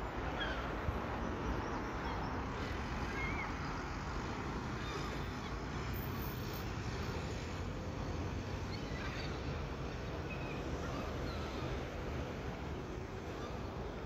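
Gulls calling now and then in short, high cries over a steady hum of road traffic.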